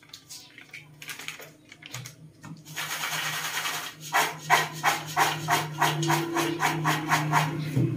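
Popcorn tossed in a large aluminium pot to coat it with cheese powder. A light crinkle of the seasoning sachet comes first, then a continuous rattling swish of popcorn sliding against the pot as it is tipped, then rhythmic shakes about three times a second.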